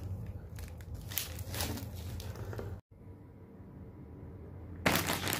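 Plastic bags crinkling and rustling irregularly as wrapped items are handled. About halfway through the sound stops abruptly and a quieter stretch with a low steady hum follows. Loud crinkling starts again near the end.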